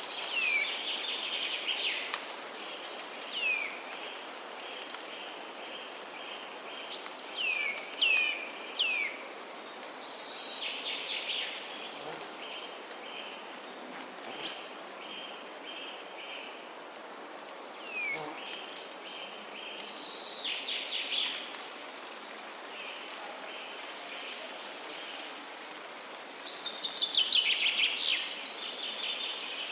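Songbirds singing in repeated bouts of short descending whistles, trills and runs of quick notes, the loudest bout near the end, over a steady high hiss.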